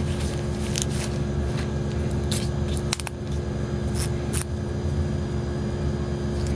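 A few short light metallic clicks of a steel clipper blade being handled after sharpening, over a steady low hum.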